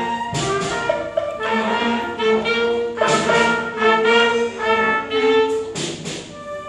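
School wind band playing a concert-band piece: clarinets, bass clarinet and trumpets sounding held chords, with louder accented chords about half a second in, about three seconds in and near the end.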